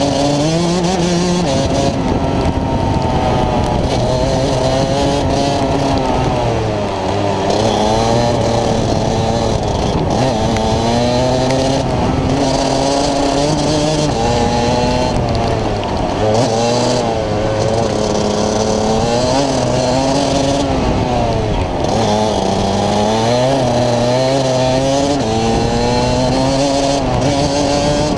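Rotax Max DD2 125 cc two-stroke kart engine heard onboard at racing speed, its revs climbing and falling back again and again as the kart accelerates and brakes, over a steady hiss.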